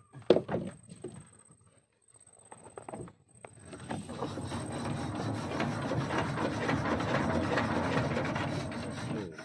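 A sharp knock just after the start and a few light taps, then from about three and a half seconds in a steady, dense rubbing, crackling noise.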